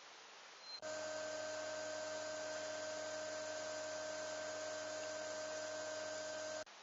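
A steady hum made of several fixed pitches, with one mid-pitched tone strongest, starting suddenly about a second in and cutting off sharply near the end.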